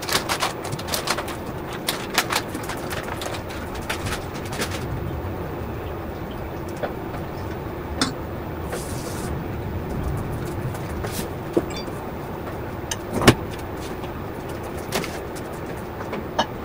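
Steady background rumble with scattered clicks and knocks, busiest in the first few seconds, a short hiss about nine seconds in, and one sharper knock about thirteen seconds in.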